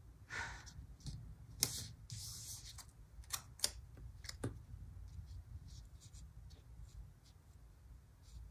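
Planner stickers being handled: soft rustling of paper sticker sheets and backing being peeled, with a few sharp light ticks and taps as stickers are pressed down, over a low steady hum.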